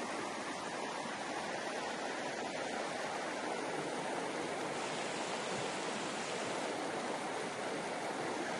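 Falling water rushing steadily, an even continuous hiss that does not change.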